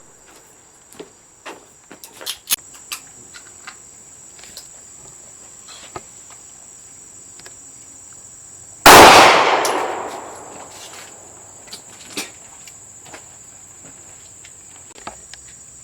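A single loud gunshot about nine seconds in, ringing out in a long echoing decay. A few faint clicks come before it, over a steady high-pitched drone.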